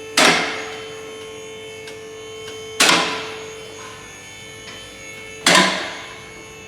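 Background music: ringing struck notes about every two and a half seconds over a steady drone.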